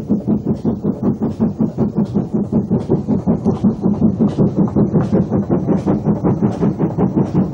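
Maunsell N-class 2-6-0 steam locomotive passing at speed with a passenger train, making a rapid, even beat of about five strokes a second.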